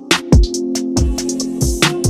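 Background music: an instrumental beat with deep kick drums that drop in pitch, quick ticking hi-hats and a held keyboard chord.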